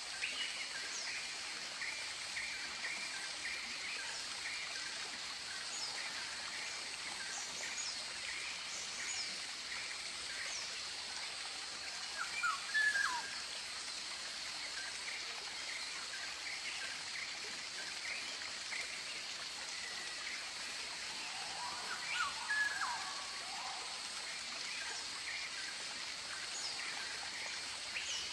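Tropical bird ambience: a steady high hiss under a rapid run of short repeated chirps. Louder bird calls with sliding pitch come twice, about twelve seconds in and again about twenty-two seconds in.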